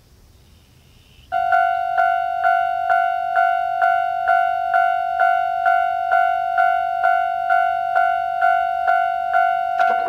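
Japanese railway level crossing's electronic warning bell starting up about a second in and ringing its standard repeating 'kan-kan' tone, a little over two strikes a second, as a train approaches.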